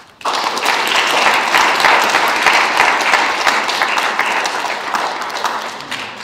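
Audience applauding: many hands clapping together, starting abruptly and dying away towards the end.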